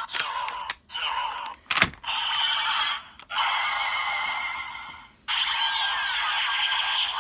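Ultraman Z toy transformation device clicking as it is worked, then playing its electronic sound effects through a small, tinny speaker in three long stretches with short breaks between them.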